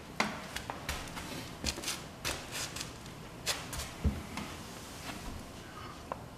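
Irregular small clicks, taps and rustles of hands handling things, with one louder knock about four seconds in.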